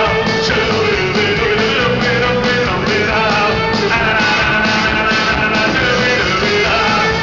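Punk rock band playing live: electric guitars and bass over a steady drum beat, with a man singing into the microphone.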